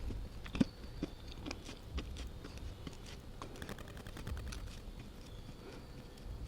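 A person biting and chewing slate pencil clay. Sharp crunches come first, the loudest about half a second in, then softer, wetter chewing.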